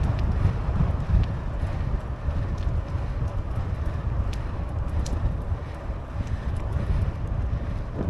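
Wind buffeting the microphone of a moving bicycle rider: an uneven low rumble, with a few faint light clicks.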